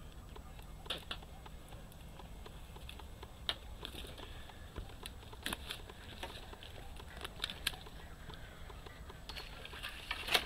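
Irregular sharp clicks and rustles from a landing net being handled on a brushy riverbank, the loudest near the end, over a low steady rumble.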